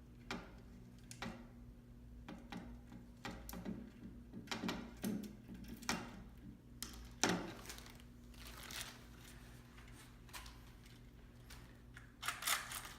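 Plastic bead chain being handled and run through a Roman blind clutch, making irregular light clicks and rattles, with a sharper click about seven seconds in.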